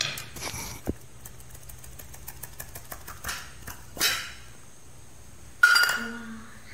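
Stainless-steel idli moulds and a spoon knocking against a steel plate as steamed idlis are turned out, with a clink about four seconds in and a louder sudden sound, ringing briefly, near the end.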